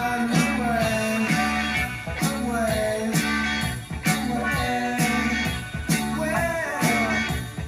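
Recorded music with a steady bass rhythm and melody, played back through loudspeakers driven by a NAD 304 stereo integrated amplifier under test.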